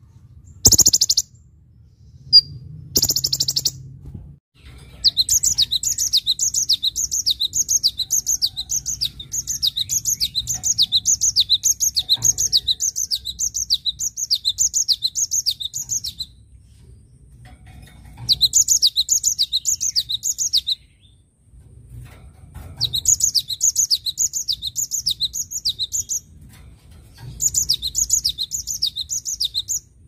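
A cinereous tit (gelatik batu) singing a quickly repeated high phrase, about two a second, in long runs with short breaks. A black sunbird (kolibri ninja) gives a few short high bursts in the first few seconds.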